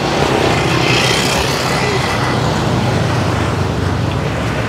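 Street traffic noise: a steady rumble of motor vehicle engines on the road.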